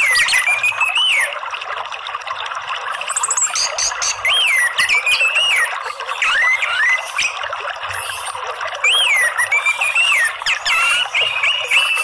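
Orange-headed thrush singing phrases of clear whistled notes that swoop up and down, several phrases a few seconds apart, over a steady rush of running water.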